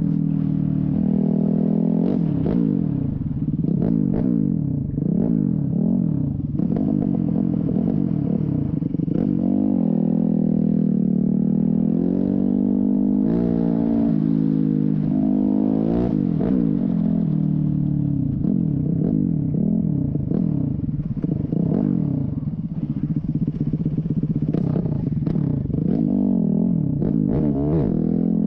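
Motorcycle engine running while riding, its pitch rising and falling again and again as the rider accelerates and changes gear.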